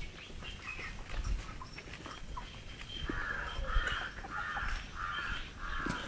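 A bird calling harshly five times in a row, evenly spaced, starting about three seconds in.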